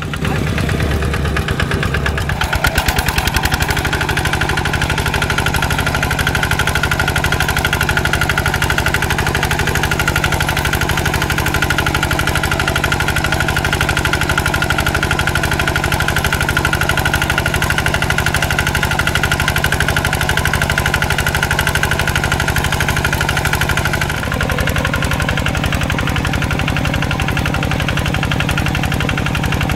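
Quick G3000 two-wheel hand tractor's single-cylinder diesel engine running steadily with a rapid, even beat as it pulls a plough through wet paddy soil. Its tone changes abruptly about 24 seconds in.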